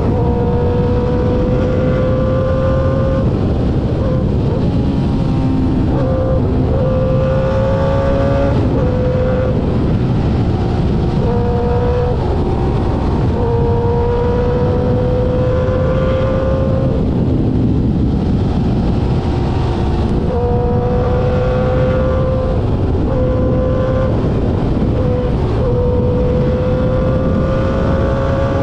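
Inline-four engine of a Suzuki GSX-R600 K5 through an SC Project exhaust, ridden at speed. Its note climbs and then steps down or jumps again and again as gears change, over constant wind rush.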